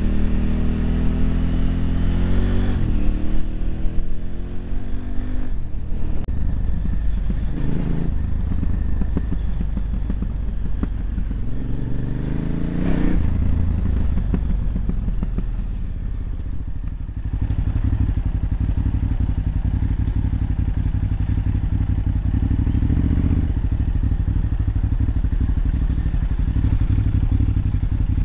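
KTM 950's V-twin engine running under way on a dirt trail, revving up at the start and again around the middle, easing off briefly a little past halfway, then holding a steady drone.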